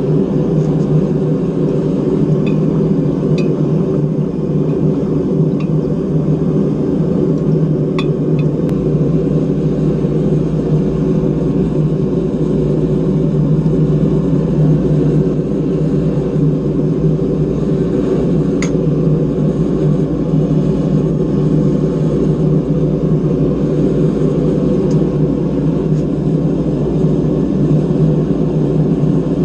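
Forge burner running steadily for the blade's heat treat, with a few faint metallic clicks about eight and nineteen seconds in.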